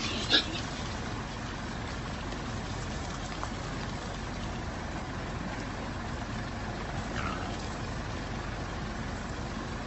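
Steady rumble of an idling vehicle engine, with a sharp knock about half a second in and a faint brief call about seven seconds in.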